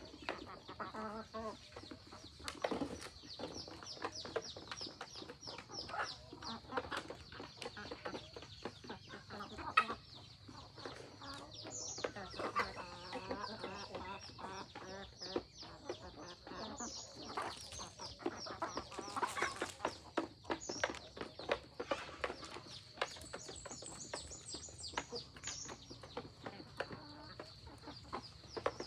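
Chickens clucking, with a constant high chirping and many small clicks running under the calls.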